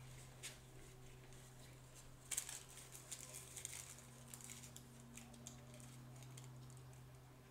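Faint rustling and crinkling of collage paper being handled, clearest in a short cluster about two and a half seconds in, over a low steady hum.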